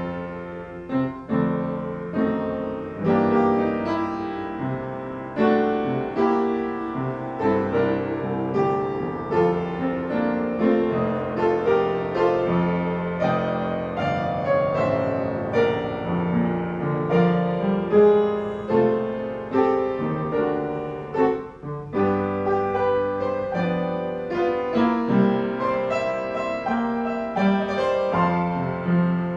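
Piano playing a flowing piece of struck notes and chords, each left to ring as the next comes in.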